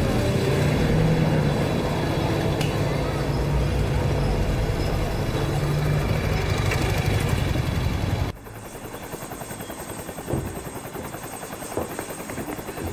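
Steady engine drone with a low hum, cutting off abruptly about eight seconds in to a quieter background with a few faint knocks.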